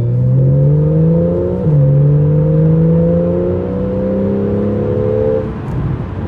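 Porsche 911 Carrera GTS (991.1) 3.8-litre flat-six with sport exhaust accelerating hard. The engine note climbs, drops sharply about one and a half seconds in at an upshift, then climbs again and drops at a second upshift near the end.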